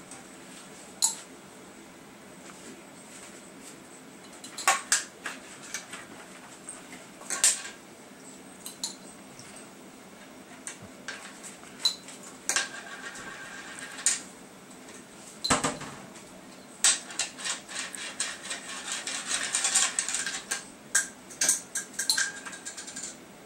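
Cutlery clinking and scraping against dishes during a meal: scattered sharp clinks, one duller knock about two-thirds of the way through, and a quick run of rapid clinks and scrapes near the end.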